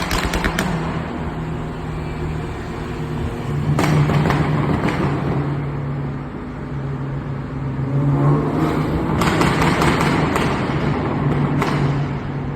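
Tuned BMW B48 turbocharged four-cylinder, stage 2 with a catalytic downpipe, running steadily in a tunnel while the exhaust fires off pops and bangs: a cluster at the start, single cracks about four and five seconds in, a rapid run of crackles from about eight to ten seconds in, and one more near the end.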